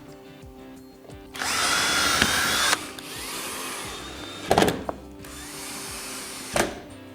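Power drill driving a screw through a plastic mounting clip: a whining run of a little over a second early on, then a quieter stretch broken by two sharp knocks.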